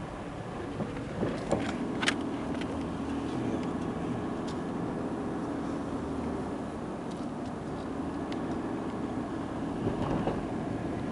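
Car running with a steady low engine and road hum, with a few sharp clicks about one to two seconds in.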